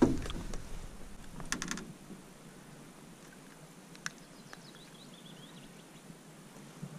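Light clicks and rattles of a jig lure and hook being handled while a small zander is unhooked by hand. There is a short cluster of clicks about one and a half seconds in and a single sharp click about four seconds in, and little else.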